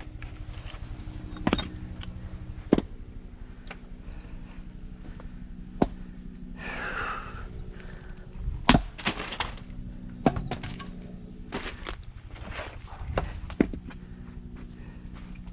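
Firewood being split with an axe or splitting maul: a series of about seven sharp strikes and cracks of wood breaking, spaced a second or more apart.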